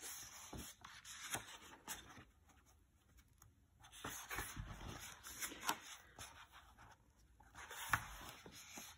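Pages of a large picture book being turned by hand: faint paper rustling and sliding with soft taps, in three bouts.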